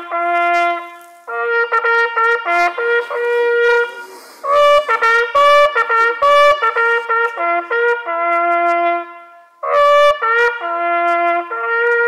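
Valveless hunting horn sounding a hunting fanfare: phrases of short and held notes stepping between the natural harmonics of the horn, with brief breaths between phrases.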